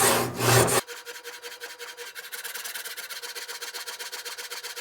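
Motorized reciprocating hand-sanding machine stroking a sandpaper-covered aluminium sanding stick over a knife blade: loud rasping strokes about two a second. About a second in these cut off abruptly, giving way to a quieter, fast, even ticking with a faint steady hum.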